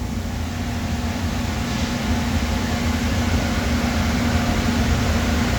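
Steady machine hum and rushing noise from running shop equipment, with a constant low tone.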